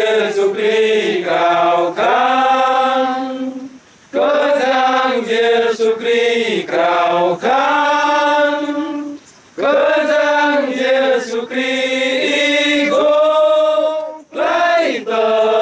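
A group of men singing together without instruments, in sung phrases of four to five seconds with short breaks for breath between them.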